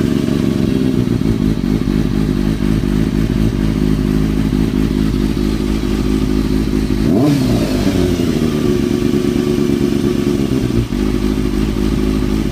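Kawasaki ZX-6R 636 (2003–2004) inline-four engine idling steadily, with one quick blip of the throttle about seven seconds in. It carries a strange noise that the owner suspects comes from the timing gear, still there after the cam chain tensioner was reset.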